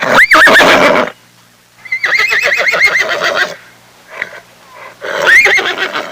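Horse whinnying three times: a short call at the start, a longer quavering whinny about two seconds in, and another short call near the end.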